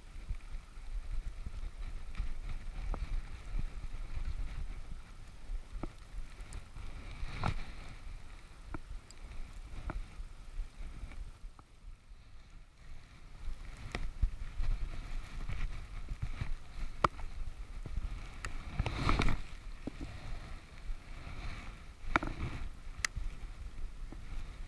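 Low, gusting rumble like wind on the microphone, with scattered sharp clicks and knocks and a louder rustling burst about nineteen seconds in.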